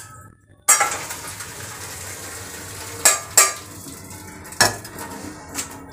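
Water poured off from a steel pot into a strainer at the sink, a steady splashing that starts suddenly about a second in, draining half-boiled elephant foot yam pieces. The steel pot clanks against the strainer and sink a few times.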